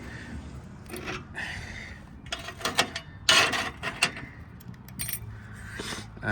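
Metal parts of a mower clinking, knocking and scraping by hand as the broken V idler pulley assembly is pulled out. There are a handful of separate knocks and scrapes, the loudest about three seconds in.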